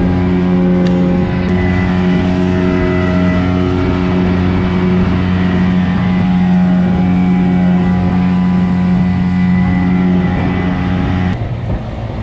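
A boat's motor running at a steady pitch. About a second before the end the sound changes abruptly: the hiss above it drops away and the engine note steps slightly higher.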